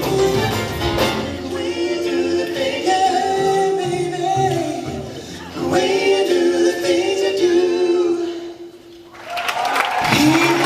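Male vocal group singing live in close harmony, holding long chords with little or no backing. The voices dip briefly about nine seconds in, then swell back into a new chord.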